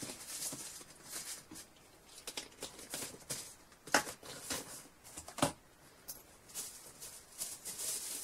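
Small cosmetic products and their packaging handled and packed back into a bag: rustling with scattered light clicks and knocks, two sharper knocks about four and five and a half seconds in.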